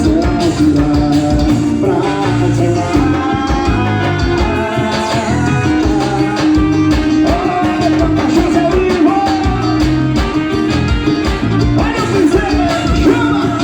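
Brazilian forró song: a singer's voice over a band with a steady beat.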